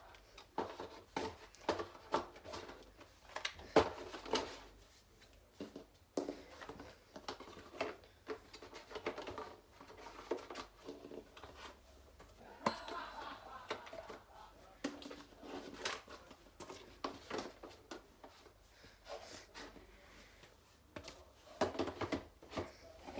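Hands handling trading-card-game packaging and pieces: irregular rustling of card and plastic with scattered small clicks and taps as things are picked up and set down.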